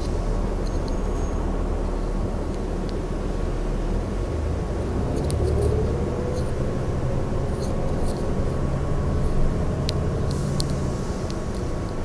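Inside a moving city transit bus: the engine and drivetrain running with a steady low rumble, rising in pitch as the bus speeds up about four to six seconds in, with scattered clicks and rattles.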